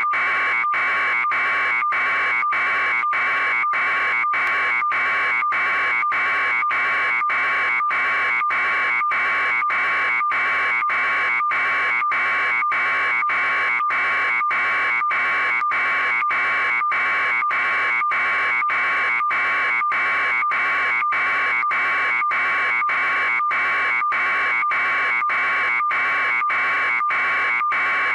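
A loud electronic buzzing tone that pulses evenly about one and a half times a second and never changes.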